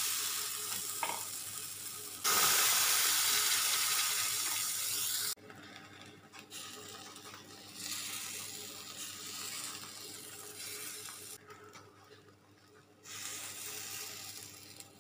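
Egg and flour paratha batter sizzling in a hot frying pan as a spoon spreads it. The sizzle is loud at first, then drops sharply about five seconds in and goes on more quietly.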